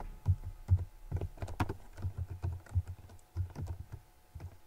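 Typing on a computer keyboard: irregular keystroke clicks, a few a second, thinning out towards the end.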